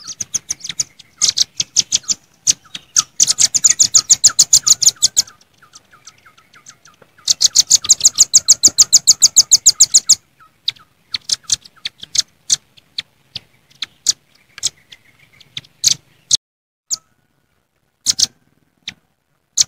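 Velvet-fronted nuthatches calling noisily: two long, fast rattling runs of sharp, high chip notes, then scattered single chips.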